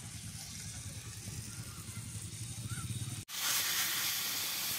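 Food sizzling as it is stir-fried in a wok on a portable gas stove, coming in abruptly about three seconds in, after a low steady rumble.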